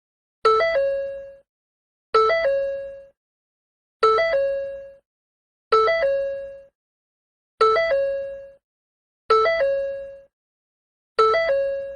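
Ford door chime sounding over and over: a short two-note ding, a lower note stepping up to a higher one that then fades, repeating about every two seconds, seven times.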